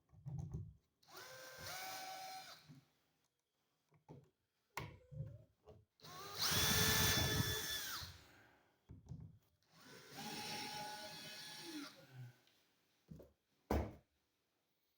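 Cordless drill/driver running the receptacle's mounting screws into the electrical box in three short runs, each a motor whine lasting a second or two, the middle one loudest, with clicks between.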